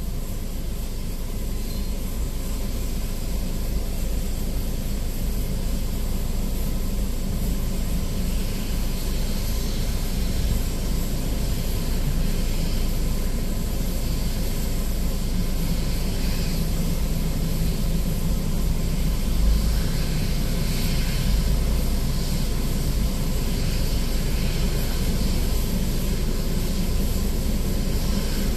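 Steady rumble and hiss of jet aircraft noise on an airport apron, heard from inside a vehicle's cabin, growing a little louder in the second half.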